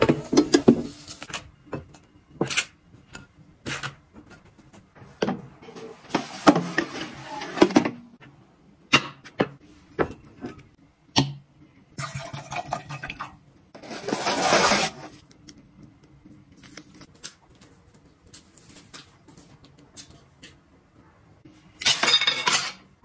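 Kitchen handling sounds: a string of sharp clinks and knocks of plates, dishes and foil trays being set down and moved, with a couple of longer scraping or rustling noises in between.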